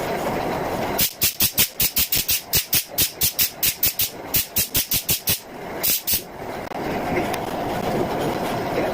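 Compressed-air spray gun hissing in quick short bursts, about four or five a second for several seconds, then twice more, over a steady background noise.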